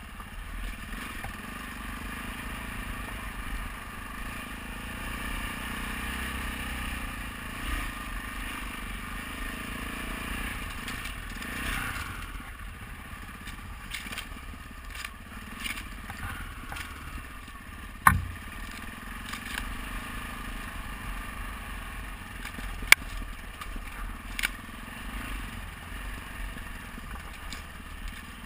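Adventure motorcycle engine running at low revs while the tyres crunch and scrape over a rocky gravel track. A loud sharp knock about 18 seconds in and another about five seconds later.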